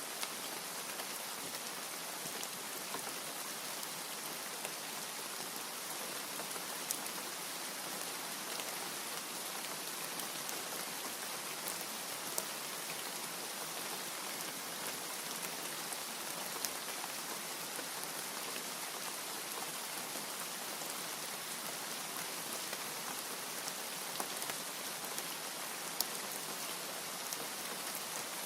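Steady rain falling, an even hiss with scattered sharp ticks of single drops; no thunder.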